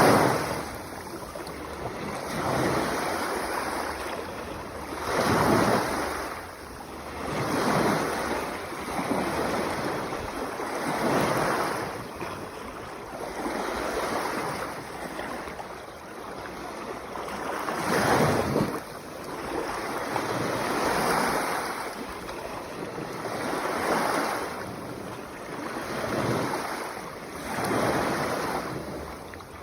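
Small sea waves washing onto the shore, each swell rising and falling every two to three seconds, with wind on the microphone.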